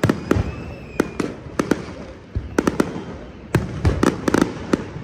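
Aerial fireworks display bursting overhead: a loud, irregular string of sharp bangs, several a second.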